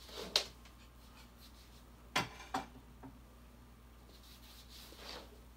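Handling noises around an old mattress: four short rustles and scuffs. The loudest comes just after the start, two follow about two seconds in and a softer one comes near the end.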